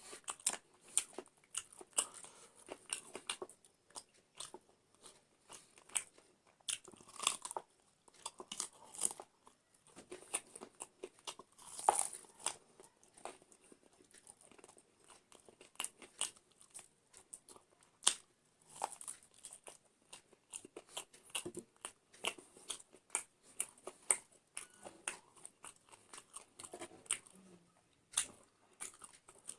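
Close-up eating sounds: chewing and crunching a meal of curry, rice and salad, with many irregular sharp mouth clicks and smacks.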